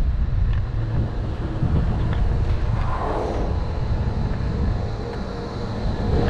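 Low wind rumble on a GoPro microphone riding a Doppelmayr high-speed quad chairlift into its top terminal, with a few faint clicks. About halfway through, a steady hum of the terminal machinery comes in as the chair passes under the terminal.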